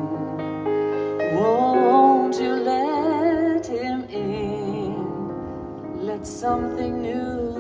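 Slow, gentle music: sustained chords under a melody line with vibrato.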